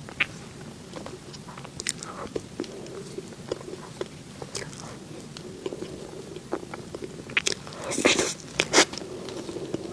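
Close-miked eating of soft cake: mouth clicks and smacks and soft chewing, with a louder cluster of wet smacks about eight seconds in.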